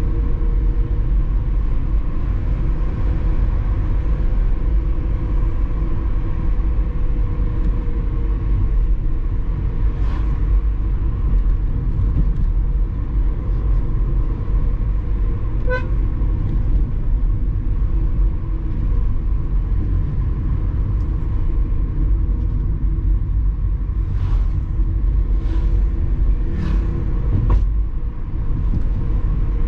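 A car driving on a winding mountain road, heard from inside: a steady low engine and road rumble with a faint steady whine. There is one brief high beep about halfway through, and a few short sharp taps near the end.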